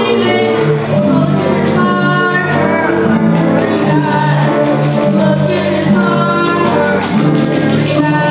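Music with singing: a melody over held bass notes that change every second or so.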